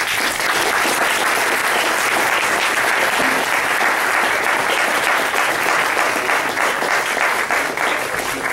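Audience applauding steadily, a dense crowd of hand claps that eases slightly near the end.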